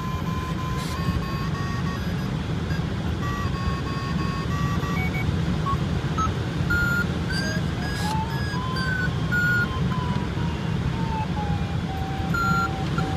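Glider audio variometer tone wavering in pitch over a steady rush of airflow. The tone climbs for a few seconds, then slides down to a lower, steadier pitch in the second half as the lift weakens.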